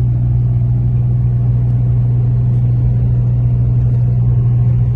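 Engine and road noise inside a moving truck's cab: a steady low drone that holds even throughout.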